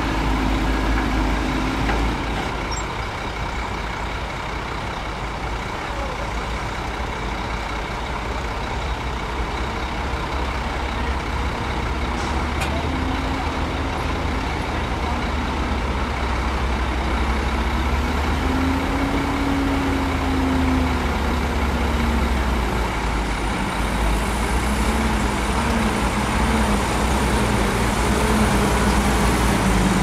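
Heavy diesel engine of an earthmoving machine running steadily under working load, its pitch rising and falling gently. A faint high whine comes in about halfway through.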